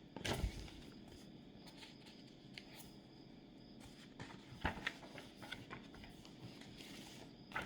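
Quiet room tone with scattered faint knocks and rustles of something being handled, a soft thump just after the start and another about four and a half seconds in.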